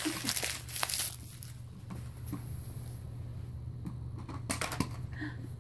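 Paper or packaging crinkling for about the first second and a half, then a few light clicks near the end as a plastic toy car is handled on a cardboard box, over a steady low hum.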